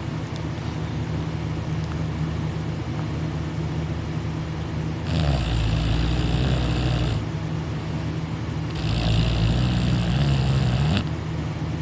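A young man snoring loudly on his back with his mouth wide open: two long snores of about two seconds each, a few seconds apart, over a steady low hum.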